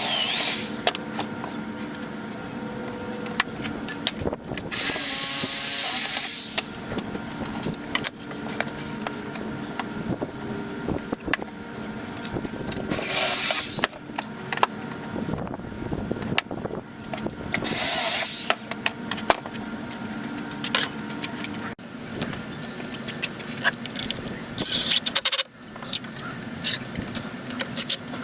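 A handheld power tool, likely a drill or driver, runs in about five short bursts, the longest about a second and a half, with knocks and clatter of wood and tools between them.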